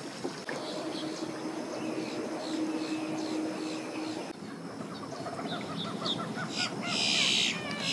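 Birds calling: a run of short, quickly repeated chirps, then a series of short rising chirps, ending in a few louder, harsh calls near the end.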